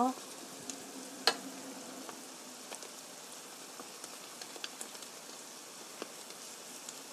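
Potato pancake batter sizzling in hot oil in a frying pan: a steady, even frying hiss. Small scattered clicks come from a metal spoon pressing and spreading the batter against the pan, with one sharper click about a second in.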